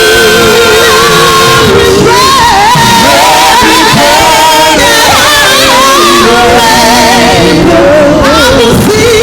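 A gospel choir singing a worship song live, with band accompaniment; the voices hold long, wavering notes.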